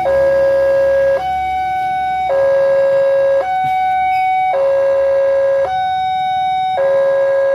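Railway level-crossing warning alarm: an electronic two-tone signal alternating between a lower and a higher tone, about one second each, sounding while the barriers are down for an approaching train.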